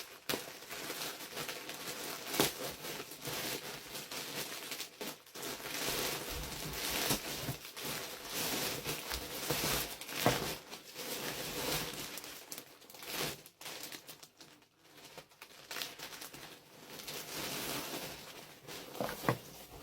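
Packaging being handled and opened: steady crinkling and rustling, with sharp crackles and tearing noises throughout.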